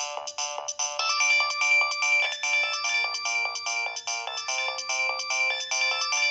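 Polyphonic preloaded ringtone playing on a Nokia 2125i cell phone: a synthesized melody of quick, evenly repeated notes in several voices. The tune grows fuller about a second in, as a held high note comes in.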